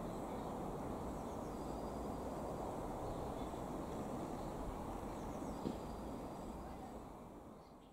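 Road traffic: cars driving over a railway level crossing, a steady rush of tyre and engine noise, with faint bird chirps above it. There is a single brief knock about two-thirds of the way through, and the sound fades out near the end.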